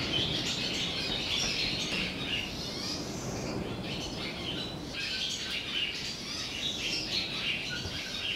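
Many small birds chirping and chattering together in a continuous busy twitter, over a low steady background hum.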